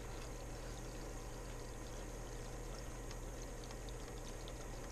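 Aquarium water running through a thin siphon tube and pouring steadily into a bucket as red slime cyanobacteria is vacuumed from the tank. A low steady hum sits beneath it.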